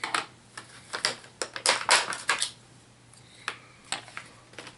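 A quick run of light plastic clicks and taps, thickest in the first two and a half seconds and then scattered, from HeroClix miniature figures being handled on a tabletop.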